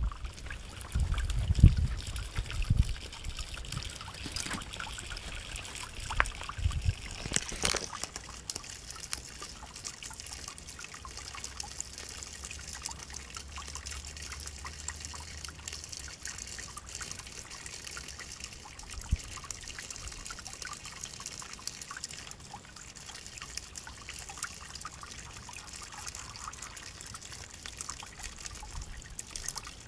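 A thin stream of water trickling steadily over the rim of an overflowing plastic tub and pattering onto grass, broken up now and then as a kitten paws through it. A few low bumps stand out in the first few seconds.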